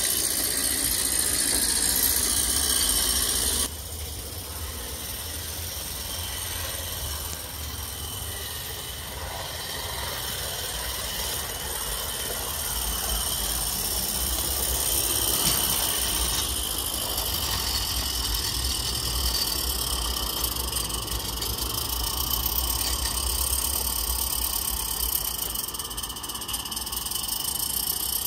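Regner Lumber Jack live-steam garden railway locomotive running fast under manual control: a steady hiss of steam with a low rumble underneath. The sound drops suddenly in level about four seconds in.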